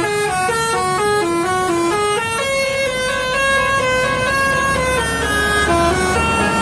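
Indonesian bus 'telolet' multi-tone horn playing a quick stepped tune of short notes, then longer held notes from about two seconds in. A bus engine is running low underneath.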